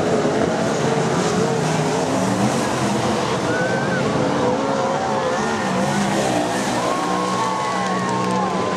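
A field of winged sprint cars' V8 engines running together, several engine notes rising and falling over one another without a break.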